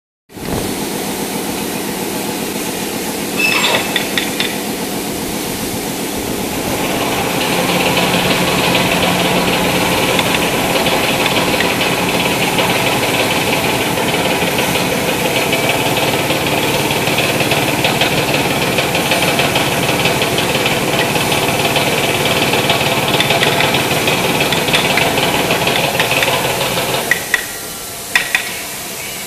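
A motor-driven machine running steadily with a constant hum and a hissy whir, louder from about seven seconds in, then cutting out shortly before the end. A few sharp knocks come once a few seconds in and again after it stops.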